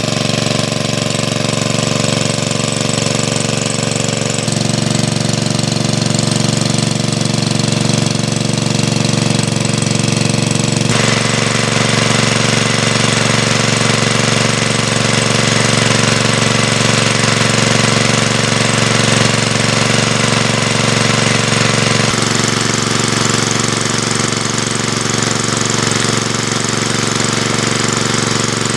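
A small engine running steadily with a fast knocking beat. Its tone changes abruptly three times, about four seconds in, near eleven seconds and near twenty-two seconds.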